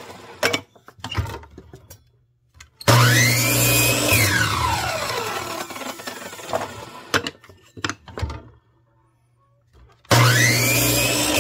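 Electric chop saw cutting strips of 2x6 to length. About three seconds in the motor starts with a rising whine, then winds down over a few seconds once released. Wooden pieces knock and clatter, and the saw starts again about ten seconds in.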